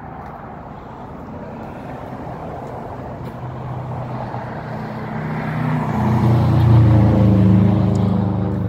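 A motor vehicle's engine running with a low hum that swells from about halfway through and is loudest near the end, over steady outdoor background noise.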